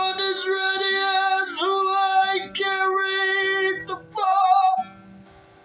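A man singing long, held high notes over an acoustic guitar. The voice stops about five seconds in, leaving a few plucked guitar notes ringing.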